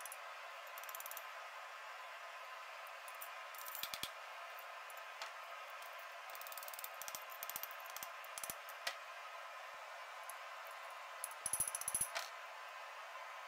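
Faint metal-on-metal hammer strikes on a punch being driven through a hot titanium bar on an anvil, coming in quick runs of several taps about four times, with a steady faint hiss between.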